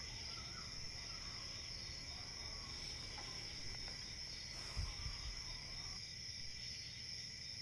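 Crickets chirping steadily in the background, with a brief low knock about five seconds in.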